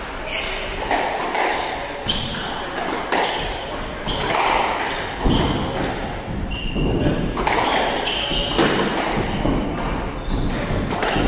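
Squash rally: a squash ball is struck by rackets and cracks off the walls again and again at irregular intervals, with court shoes squeaking and footfalls on the wooden floor between hits.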